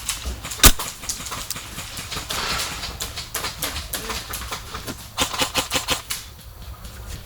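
Airsoft gunfire: scattered sharp clacking shots, then a rapid full-auto burst about five seconds in.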